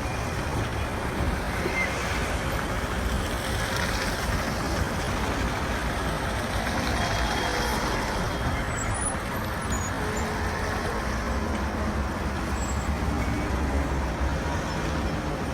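Street traffic: vehicle engines and tyres running steadily on the road.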